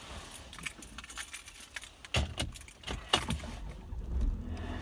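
Phone handling noise: rustling against clothing, with a few sharp clicks and rattles in the second half.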